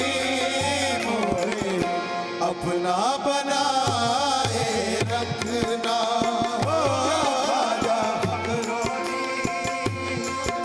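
Qawwali music: harmoniums hold chords under a regular tabla beat, while a male voice sings a wavering, ornamented line.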